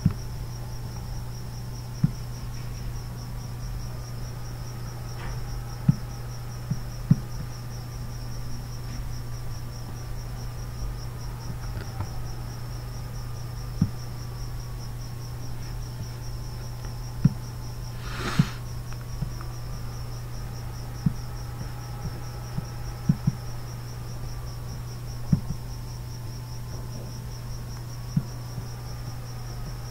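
A steady high-pitched pulsing trill over a low steady hum, with short sharp clicks every few seconds, which fit computer mouse clicks.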